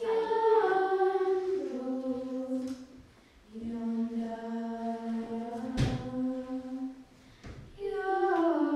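Girls' voices singing unaccompanied together in long held notes that step and glide down in pitch, with a short break about three seconds in. A single sharp knock sounds around two-thirds of the way through.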